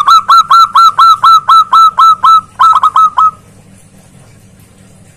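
Zebra dove (perkutut) calling loudly: a fast run of about a dozen clear, hooked coos, then after a short break a quicker burst of four or five, stopping a little over three seconds in.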